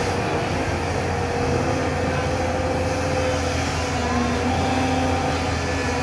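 JCB excavator's diesel engine running steadily.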